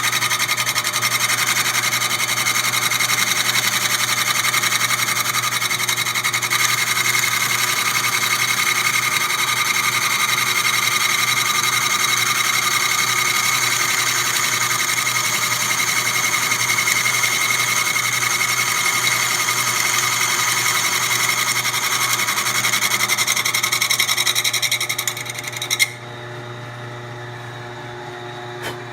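Milling machine fitted with a grinding attachment running, a steady high whine with several tones as it grinds down a broken bolt. The machine shuts off a few seconds before the end with a brief knock, and only a low hum remains.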